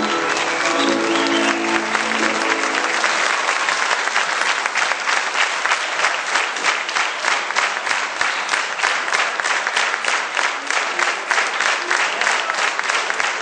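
A folk band's fiddle and double bass play their last notes over audience applause, the music stopping about two and a half seconds in. The applause then settles into steady rhythmic clapping in unison.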